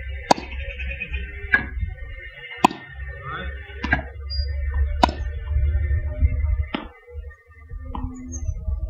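Tennis balls being struck in a ball-machine drill: seven sharp pops a second or so apart, alternating louder and softer, with wind rumbling on the microphone.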